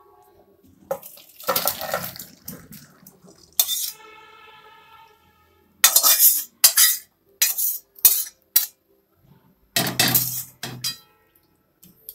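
A metal ladle scraping and clanking against a steel kadai and a steel serving bowl as a cooked curry is ladled out. It comes in several separate bouts of scraping with sharp clanks, and a short ringing tone about four seconds in.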